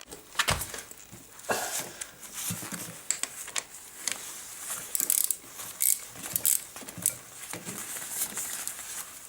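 15 mm socket wrench working loose the crank bolt of a Shimano 105 chainset: irregular metal knocks and clicks, with a heavier knock about half a second in and a run of sharper clicks a little past halfway.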